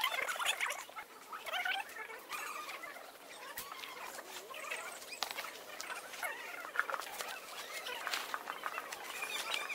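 Nylon tent fabric rustling and crinkling, with scattered clicks and knocks from the poles, as a dome tent is laid out and put up. Birds chirp now and then behind it.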